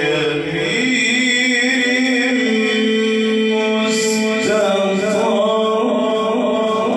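A man chanting Quran recitation in the melodic tajweed style into a microphone, holding long drawn-out notes that step up in pitch about half a second in and again around the middle.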